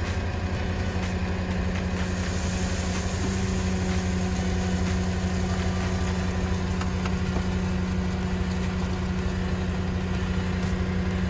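Site dumper engine running steadily while its hydraulics raise and swing the loaded skip. From about three seconds in the engine note strengthens as it takes the hydraulic load.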